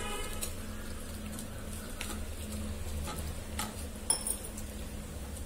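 Hand mixing rice flour and water into a dough in a bowl: soft scattered clicks and knocks, with one sharp ringing clink about four seconds in, over a steady low hum.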